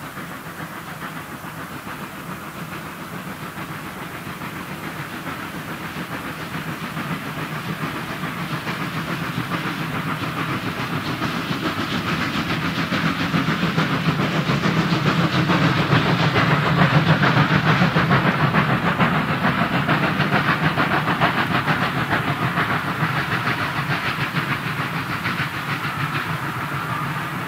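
DB class 01.10 three-cylinder steam locomotive 01 1066 passing at the head of a long train: its exhaust beats and running gear grow louder, peak as it goes by a little past halfway, then ease off as the coaches roll past, clattering on the rails.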